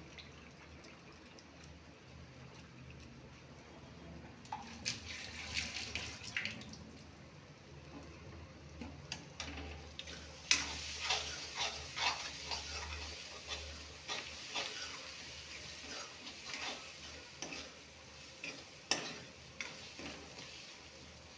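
A steel spoon scrapes and clinks against a metal kadhai as a thick onion-garlic masala paste is stirred while it fries. The scraping comes in irregular bursts from about five seconds in, over a soft frying sizzle.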